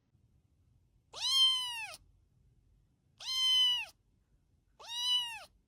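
A cat meowing three times, evenly spaced. Each meow is high-pitched and rises, then falls.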